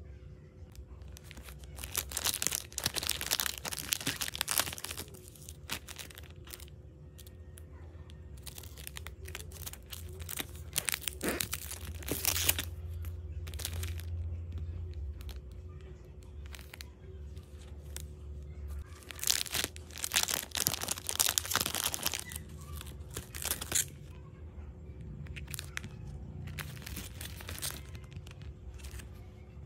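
Clear plastic packaging pouches of phone cases crinkling and rustling as they are handled and the cases are pulled out, in several bursts of crackle with pauses between.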